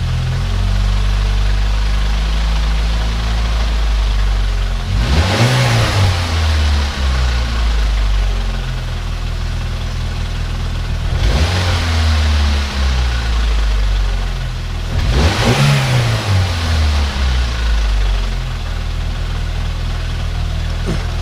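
Freshly turbocharged Nissan GA16DE 1.6 four-cylinder running, blipped three times, each rev rising and falling with a hissing rush of air over the steady running.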